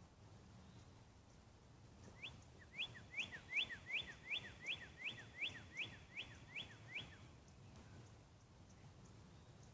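A bird singing: a quick, even series of about a dozen sharp rising notes, starting about two seconds in and lasting about five seconds.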